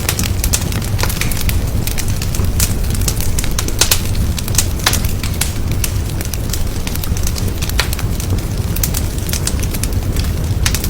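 Wood fire burning in a fireplace, crackling with frequent sharp pops and snaps over a steady low rumble of the flames.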